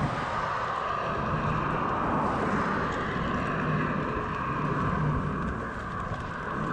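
Steady wind rush on the microphone and tyre noise from a bicycle rolling along an asphalt road.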